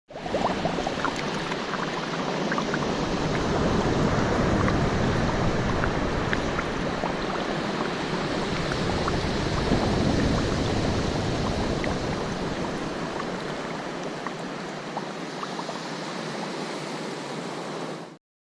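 Rushing water that swells and eases, with faint small clicks scattered through it. It comes in at the start and cuts off abruptly near the end.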